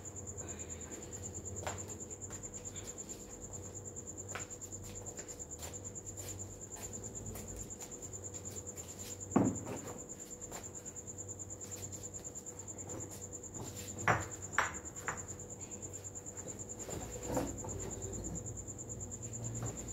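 Crickets chirping in a steady, high, pulsing trill. A few sharp knocks from plant pots being handled break in, the loudest about nine seconds in and a pair around fourteen seconds.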